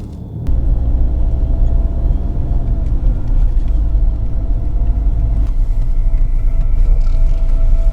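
A loud, steady low rumble comes in suddenly about half a second in, with a faint steady hum above it.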